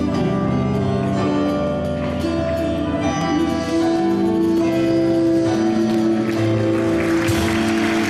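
Live band music, the song closing on a long held note, with audience applause starting near the end.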